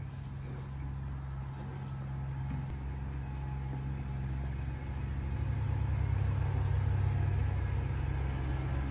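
A steady low mechanical hum, like a running engine or motor, growing louder about halfway through. Two faint high chirps can be heard over it.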